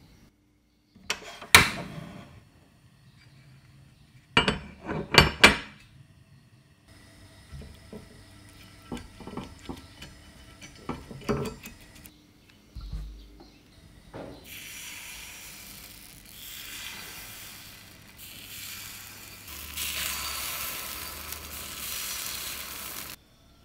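A few sharp clinks and knocks of kitchen utensils against glass and metal, then batter sizzling in hot oil as it is poured into the wells of a takoyaki pan. The sizzle grows louder near the end as more wells fill.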